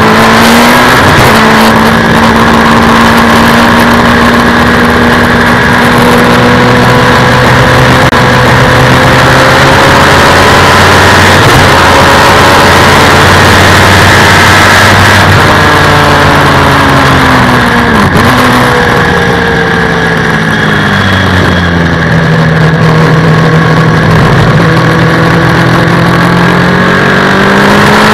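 Suzuki Hayabusa 1300 inline-four motorcycle engine, heard onboard the race car it powers, running hard on track. Its pitch climbs and falls with the gear changes, with a sharp drop and recovery about two-thirds of the way through.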